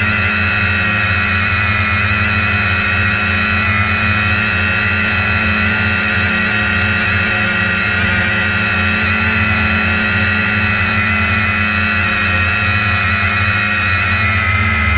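Multirotor drone's motors and propellers running, a steady whine of several tones, as it descends toward the ground.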